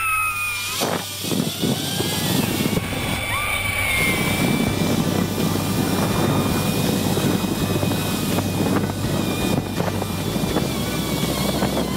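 Wind rushing over a camera microphone riding a zipline at speed: a steady, loud buffeting noise, with a brief rising whine right at the start.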